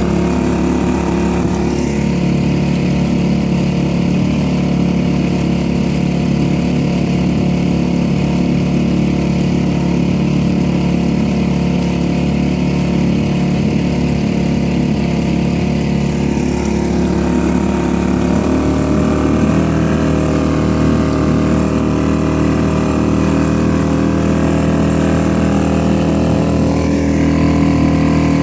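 Suzuki DF2.5 four-stroke single-cylinder outboard motor running steadily under way, its note changing about two-thirds of the way through.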